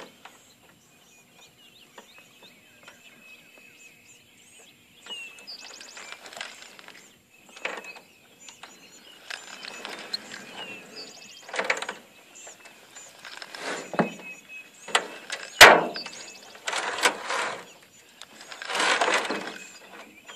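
Irregular bursts of rustling and handling noise from clothing and gear rubbing against the camera as the angler works his rod and reel, with one sharp click about three-quarters of the way through. Faint bird chirps sound behind it.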